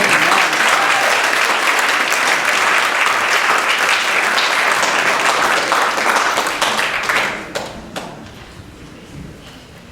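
Audience applauding, loud and steady for about seven seconds, then dying away to a few scattered claps.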